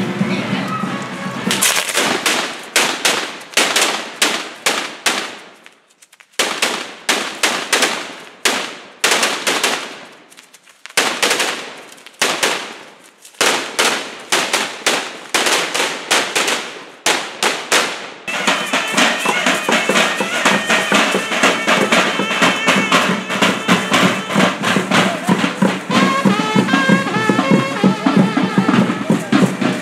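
Strings of firecrackers going off in long, rapid runs of sharp cracks, with two short lulls. About eighteen seconds in, the bangs stop and music with drums takes over.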